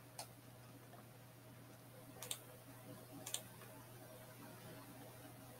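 Computer mouse clicks, a few scattered sharp clicks, over a faint steady hum.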